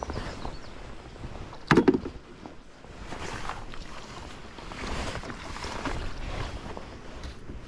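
Wind and water noise around a small fishing boat, broken by one loud thump about two seconds in.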